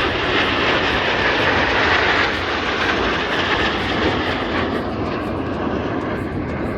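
Loud rushing jet noise from a formation of Aermacchi MB-339 jets passing overhead, strongest about two seconds in and then slowly fading.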